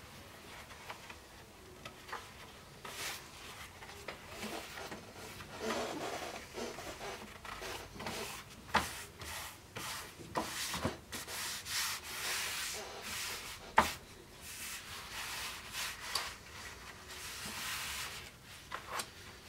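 Hands rubbing and smoothing a sheet of leather pressed around a wooden scabbard core: dry brushing rubs in several stretches, with a few sharp taps and clicks as the piece is handled.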